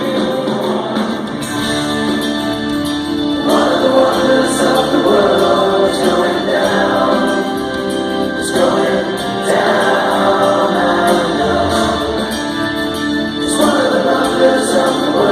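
Live rock band performance with several voices singing together over the band, the singing swelling in and out in phrases.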